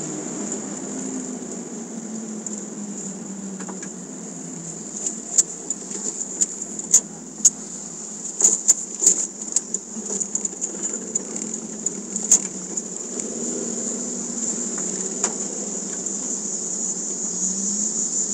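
Toyota MR2 Spyder's mid-mounted 1.8-litre four-cylinder engine running at low speed as the car rolls slowly, heard from inside the cabin, its pitch drifting with the throttle. A steady high-pitched whine sits over it, and a scatter of sharp clicks comes in the middle.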